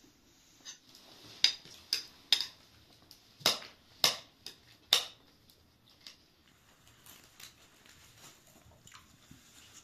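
Metal spoons clinking against ceramic bowls and a pan during a meal: about six sharp clinks in the first half, then only faint small clicks.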